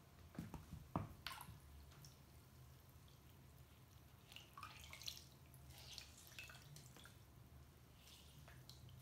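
A couple of soft knocks about a second in, then faint splashing and dripping of water as a microfiber cloth is dipped into a small enamel bowl of water and lifted out.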